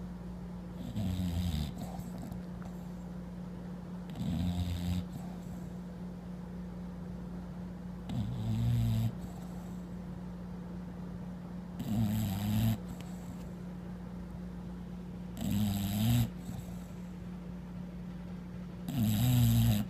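English bulldog snoring in its sleep: six long, low snores, one about every three and a half to four seconds, the last near the end the loudest.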